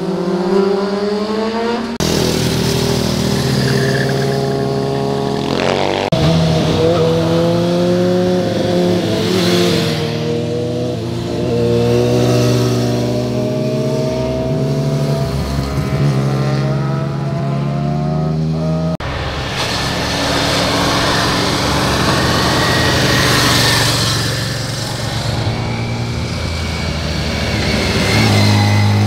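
Motorcycle engines as several bikes ride through a bend one after another, the engine note rising and falling in pitch as the riders throttle and pass by.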